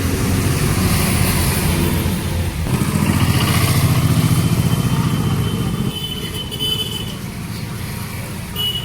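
Highway traffic in heavy rain: vehicle engines rumble close by under a steady hiss of rain and wet tyres. The rumble is loudest in the middle and drops off suddenly about six seconds in, and a thin high whine is heard briefly after that and again near the end.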